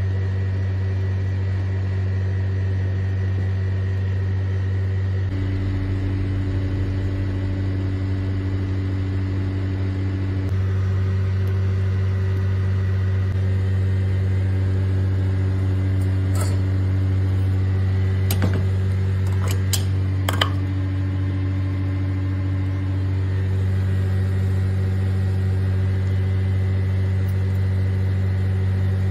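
Steady low mechanical hum, like a fan or motor running, with a few short clicks about two-thirds of the way through.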